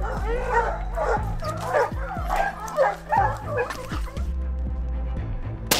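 Hunting dogs yelping and barking in a rapid run of calls for about four seconds, over background music. Near the end comes a single sharp bang.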